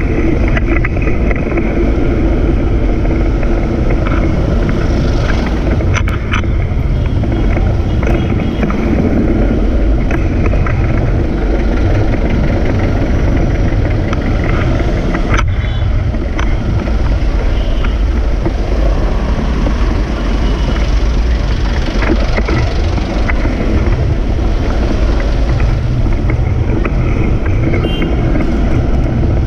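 Steady loud rumble of wind and road noise on the microphone of a camera riding a moving bicycle through city street traffic, with motorcycle and jeepney engines running close by. A couple of sharp clicks, about six seconds in and again a little past halfway.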